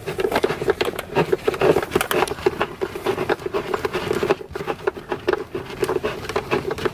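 Doona LATCH base's level adjuster being spun by hand, a rapid, even run of clicks as it raises the back of the base toward level.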